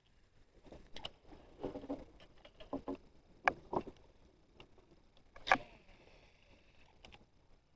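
Scattered knocks and clicks of gear being handled on a small boat, the sharpest about five and a half seconds in.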